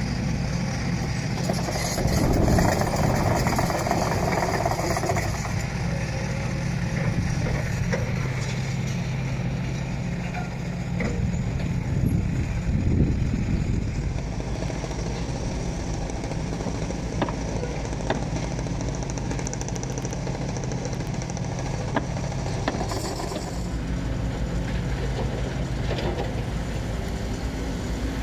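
Excavator's diesel engine running steadily at a low idle, with a swell in the engine noise twice. A few short, sharp knocks can be heard over it.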